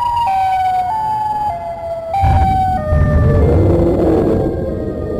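Siren-like electronic tone stepping down in pitch, note by note. About two seconds in, a loud low rumble comes in beneath a wavering wail.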